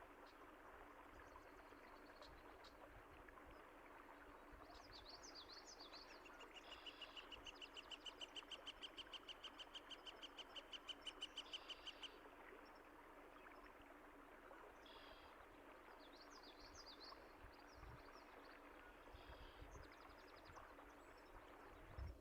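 Faint steady rush of flowing water with birds chirping over it. About six seconds in, a bird sings a fast trill of quickly repeated notes that lasts about five seconds.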